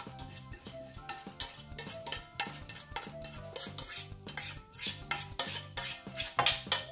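A metal spoon scraping and knocking inside a stainless steel pot as cooked couscous is tipped out of it onto a ceramic plate: a run of irregular short scrapes and clinks, loudest near the end.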